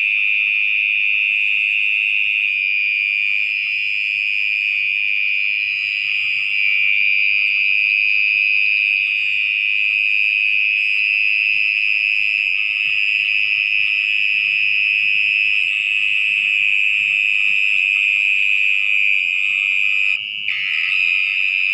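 Mole cricket singing from its burrow: a loud, steady, unbroken high trill that drops out for a moment near the end.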